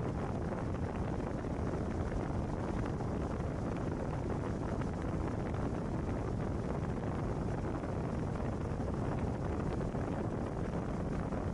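Wind buffeting the microphone on open water: a steady low rumble with hiss above it.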